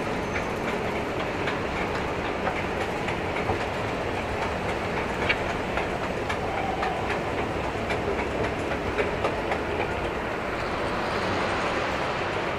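Escalator running: a steady mechanical rumble with regular clicks about twice a second, which fade out near the end as the top is reached.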